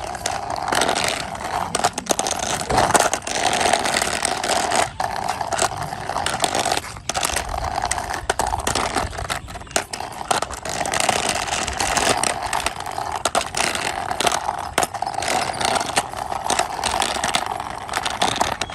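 Small toy rabbit vehicle's plastic wheels rolling and scraping along a wall as it is pushed by hand, a continuous rough rolling noise with a steady whir and many small clicks and knocks.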